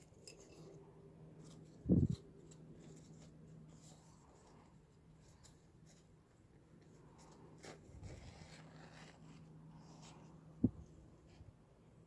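Damp paper towel being handled and unfolded, with soft paper rustling and crinkling. Two short dull thumps stand out, about two seconds in and near the end, over a faint steady low hum.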